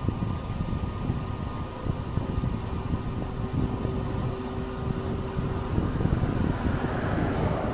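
Wind buffeting the microphone of a bicycle-mounted camera while riding, a low uneven rumble, with a brief hiss that swells and fades about seven seconds in.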